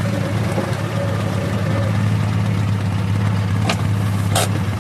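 Engine of the log-hauling vehicle idling steadily, with two short sharp knocks near the end.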